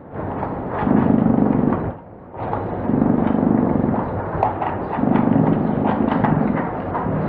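Patagonian mara calling: low, rough calls about a second long, three of them roughly two seconds apart, over a continuous scratchy noise with scattered clicks.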